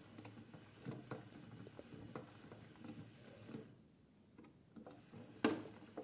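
Toy AEG Lavamat washing machine running a wash: water sloshing in the turning drum with irregular light knocks and clicks. It goes quieter for about a second two-thirds of the way through, then a sharper knock comes near the end.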